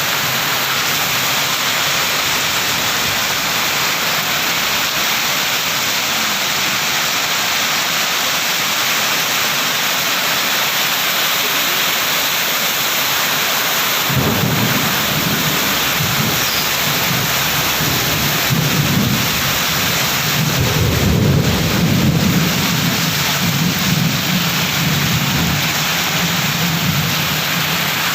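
Heavy rain pouring steadily in a downpour. About halfway through, a deep, uneven rumbling sets in beneath the rain and swells, strongest about three-quarters of the way through.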